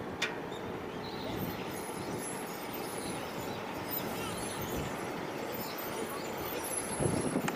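Steady outdoor background noise with faint distant voices, and a single sharp click about a quarter second in.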